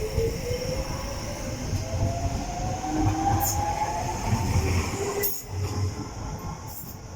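Docklands Light Railway train pulling away, its traction motors whining and rising steadily in pitch as it speeds up, over a low rumble and clunking of wheels on the track. The sound eases off near the end as the train leaves.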